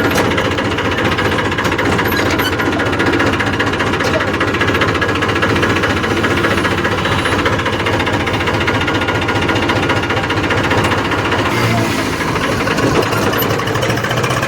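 Eicher 380 tractor's diesel engine running steadily on the move, a constant rapid pulsing clatter.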